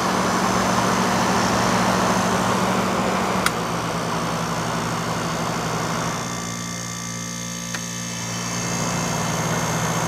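1960s Westinghouse Mobilaire 5000 window air conditioner running with its compressor just cut in by the thermostat: a steady low hum under the rush of the fan's air. A sharp click about three and a half seconds in and a small tick near eight seconds; the air rush eases for a few seconds in the second half.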